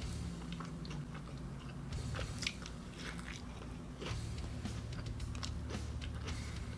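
A person chewing a mouthful of a thick fast-food hamburger, with scattered small crunches and clicks.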